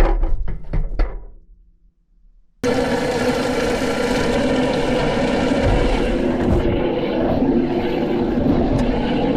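A few sharp knocks, then after a short quiet gap a washing machine starts abruptly: a loud, steady motor hum and churning, heard from inside the drum.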